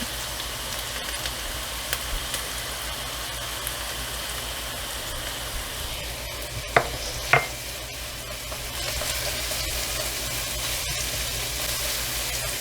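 Chopped onion, hot pepper, pimento pepper and garlic sizzling in hot oil while being stirred, a steady hiss that grows a little louder about nine seconds in. Two sharp knocks come close together about seven seconds in.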